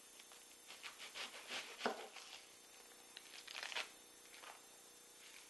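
Faint handling sounds of an onion being prepared: a kitchen knife cutting through it onto a wooden cutting board, and the dry, papery onion skin rustling and crackling in short strokes as it is peeled off by hand.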